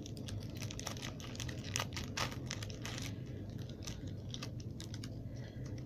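Irregular small clicks and crinkles of a trading-card booster pack's foil wrapper and cards being handled, over a low steady hum.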